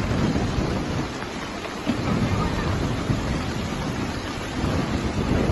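Stormy wind and rushing water: a steady hiss with low rumbling surges that come and go.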